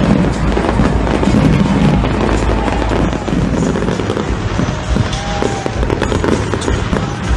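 Aerial fireworks going off in a rapid string of bangs and crackles, with music underneath.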